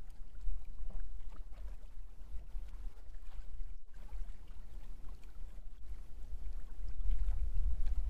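Low, uneven rumble of wind and water around a fishing boat sitting on a river, with a few faint knocks; it grows louder near the end.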